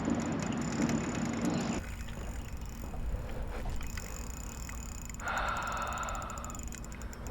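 Fishing reel working against a freshly hooked fish, with a fast ticking and a brief buzzing whirr about five seconds in, over wind and boat noise.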